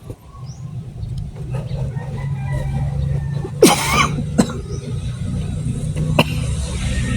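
A motor vehicle engine running steadily and growing louder. About halfway through comes a brief rising metallic squeal, followed by a couple of sharp knocks.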